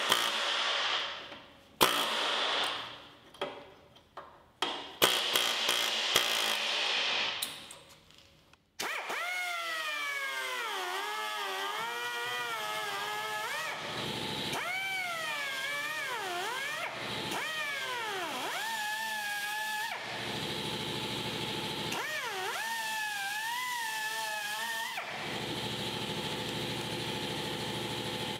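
Pneumatic air chisel hammering in short repeated bursts against rusted sheet steel of a VW Beetle floor pan's jack mount. About nine seconds in it gives way to background music with a gliding melody.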